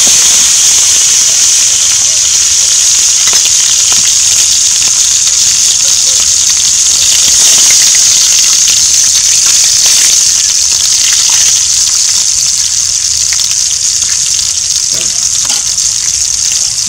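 Quail pieces freshly dropped into hot cooking oil in a pan, frying with a loud, steady sizzle and scattered pops, easing off slightly toward the end.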